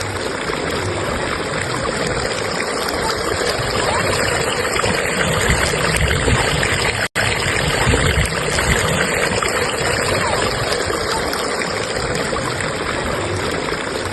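Fast-flowing stream current rushing steadily over rocks, with a split-second dropout in the sound about halfway through.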